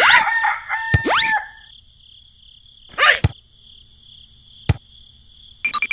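A rooster crowing once, then a steady high insect trill with a short call about three seconds in and a quick run of chirps near the end.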